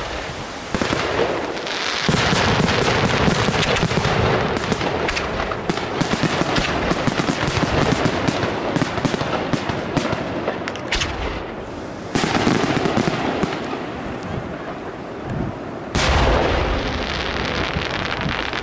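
Professional fireworks display: aerial shells and comets firing and bursting in a dense, rapid stream of bangs. Heavier volleys come in about 1 and 2 seconds in, again about 12 seconds in, and a loud one about 16 seconds in.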